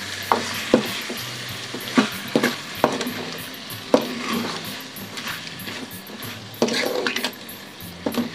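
Metal spoon stirring chicken curry in a metal kadai, clinking and scraping against the pan at irregular intervals over the sizzle of the masala frying in oil. The oil has separated from the masala after ten minutes of covered cooking.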